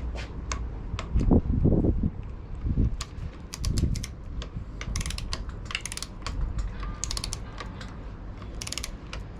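Ratchet wrench clicking in short runs of rapid clicks: a torque wrench being worked back and forth to tighten the mountain bike's stem bolts. A few dull knocks from handling the bike and tools come in the first few seconds.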